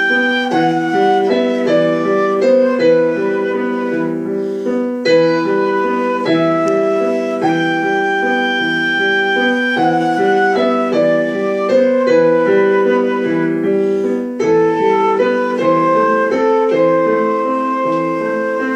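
Flute playing a slow melody in long held notes over a piano accompaniment of steadily repeated chords.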